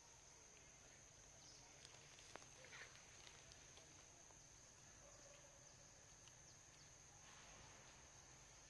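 Near silence: a faint, steady high-pitched insect drone, with a few soft clicks and rustles about two to three seconds in.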